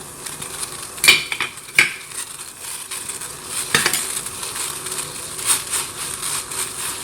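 Water boiling in a pan with a steady hiss, and sharp clinks against the pan about one, two and four seconds in as the herbs and ginger are added.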